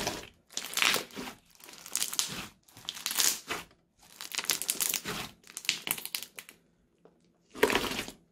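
Thick crunchy slime being squeezed, pressed and stretched by hand, giving bursts of crackling and popping about once a second. A short pause comes before a final loud burst near the end.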